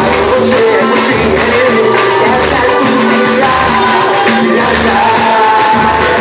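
Live pagode band playing, with a sung melody over a steady beat.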